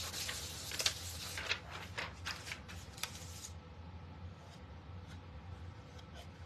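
Plastic backing sheet of a rub-on transfer rustling and scratching as it is rubbed down by hand onto a wooden cutting board, with a few sharp crinkles. After about three and a half seconds the rubbing stops and only faint handling noise is left.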